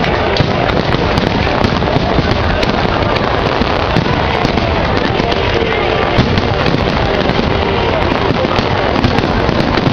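Fireworks going off: a dense, steady crackling with frequent small pops and bangs, with no single large burst.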